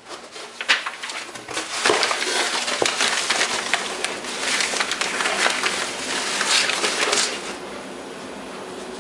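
Crinkling and rustling of plastic packaging with many small clicks as it is handled, dying down about seven and a half seconds in.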